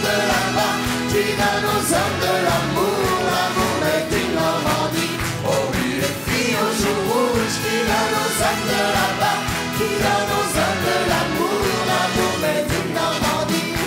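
A live band playing a French chanson with a steady beat, with a woman and a man singing.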